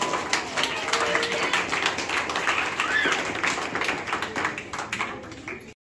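A small crowd applauding, with scattered voices and a short whoop among the claps. The clapping thins and fades over the last second, then the sound cuts off abruptly.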